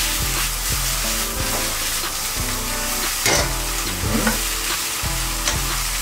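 Stir-fry vegetables sizzling in a hot wok over a gas flame, stirred and tossed with a wooden spoon, with a sharp scrape about three seconds in. Faint background music underneath.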